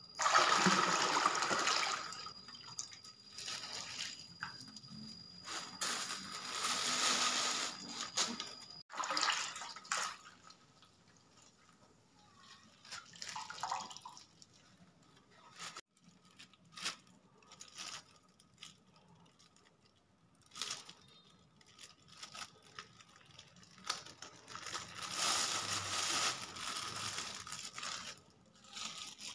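Coconut milk being poured from plastic bags into a large aluminium wok, splashing and running into the liquid already there. It comes in several bursts, the loudest right at the start, more a few seconds later and again near the end, with short crinkles and clicks of plastic bags handled between.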